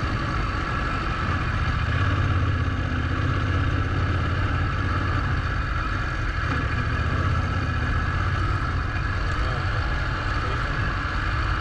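Adventure motorcycle's parallel-twin engine running steadily at low speed in first gear on soft gravel, with a steady hiss over the low engine hum.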